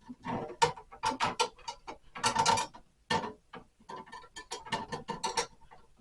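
Irregular clicking, knocking and rattling of a metal knife against a freezer door as it is fiddled into place to prop the door open a crack, with a quick cluster of clatters about two seconds in and another near the end.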